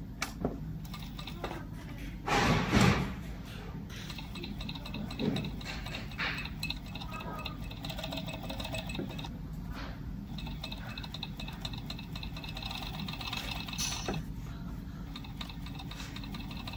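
Zoyer ZY988 overlock sewing machine stitching a knit-mesh shoe upper, running in two stretches with a fine high whine over a steady low workshop hum. A brief louder noise about two and a half seconds in.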